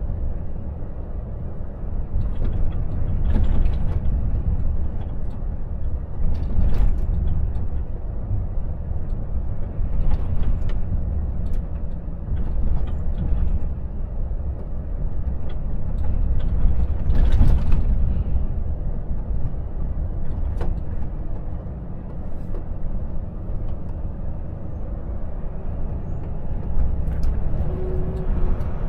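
Volvo FH truck on the move: a steady deep diesel engine and road rumble, with a few brief sharp noises every few seconds, the loudest a little past halfway.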